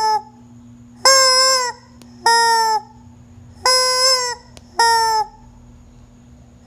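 A chicken calling loudly and repeatedly: four harsh, even-pitched calls of about half a second each, roughly one every second, plus the tail of another call at the very start.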